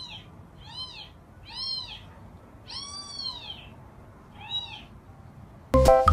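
A cat meowing five times, each call rising then falling in pitch, the fourth one the longest. Bright mallet-like music starts abruptly near the end.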